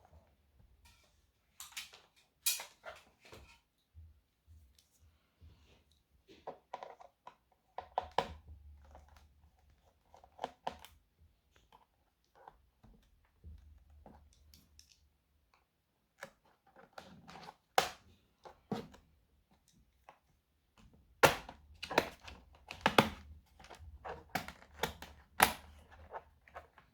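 Plastic clicks and knocks of a Toshiba Satellite C855 laptop being handled and opened, scattered with pauses, with a denser run of clatter near the end as the bottom cover comes off to show the hard drive.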